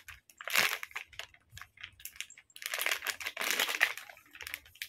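The soft plastic wrapper of a baby wet-wipes pack crinkling and crackling as it is handled and opened at its flip-top lid, in two spells: a short one near the start and a longer one in the second half.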